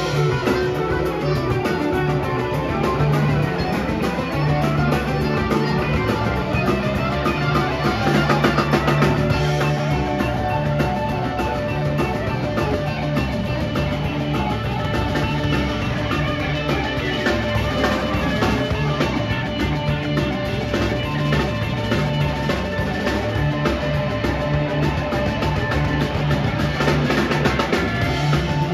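Live rock band playing an instrumental jam: electric guitars, bass guitar and drum kit, with a harmonica played into a vocal microphone.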